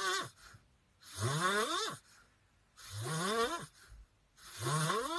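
A sleeping puppy snoring: breathy snores with a tone that rises in pitch on each breath, repeating roughly every two seconds.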